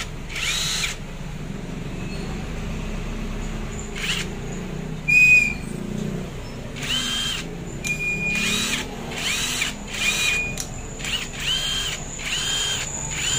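Brushless cordless impact driver spun up with no load in about nine short trigger pulls, each a whine that rises and falls away, coming faster in the second half. The freshly repaired tool runs again. A short high steady tone about five seconds in is the loudest sound.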